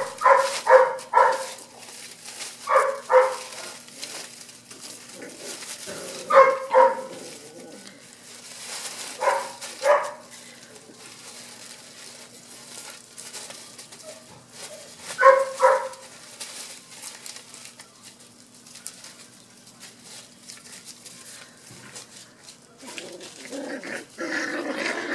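Golden retriever puppies yipping in quick clusters of two to four high-pitched barks, five times over, with faint rustling of paws in dry leaves and gravel between; a longer, lower sound comes in near the end.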